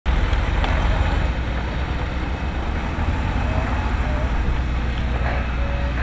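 Fire engine's engine running steadily, a constant low rumble.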